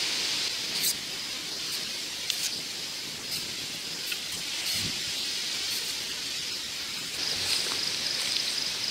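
Light clicks and knocks of plastic PVC pipe pieces and fittings being handled and set down, with one duller thump about halfway. Insects chirp in the background in a rapid pulse from about seven seconds in, over a steady outdoor hiss.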